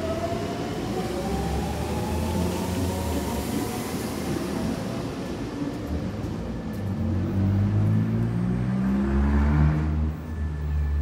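Electric commuter train pulling away and speeding up. Its motors give whines that climb in pitch in steps over a steady rumble, growing louder toward the end.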